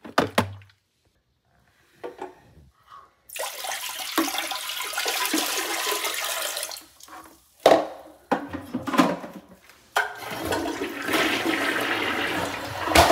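A clunk as the dirty-water tank is lifted off a Tineco iCarpet carpet cleaner. The tank's water is then poured into a toilet bowl for about three seconds. After a few hard knocks, the toilet flushes through the last few seconds.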